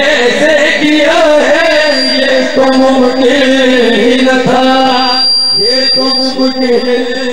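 Two men singing a noha, an Urdu Shia lament, unaccompanied into microphones. One voice holds a long steady note under the other's wavering melody, with a brief break about five seconds in.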